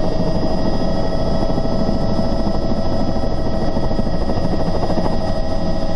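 Helicopter's engine and rotor heard from inside the cockpit as it lifts off the grass and turns into a hover: a steady whine with several fixed tones over a dense low rotor rumble.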